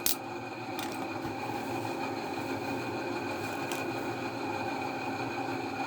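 Steady mechanical hum in the room, with one sharp click just at the start and a couple of faint ticks later on.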